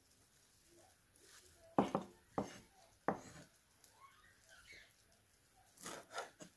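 Large kitchen knife chopping fresh parsley on a wooden board: three sharp knocks of the blade on the board under a second apart about two seconds in, then a quicker run of knocks near the end.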